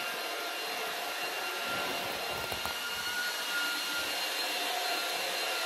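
Steady whooshing air noise of a running electric fan, with a faint high whine held at one pitch.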